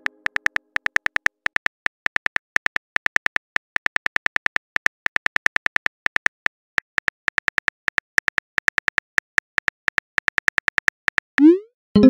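Synthetic phone-keyboard tap clicks from a texting-story app, about six a second with brief pauses, as a message is typed out. Near the end a short rising whoosh marks the message being sent.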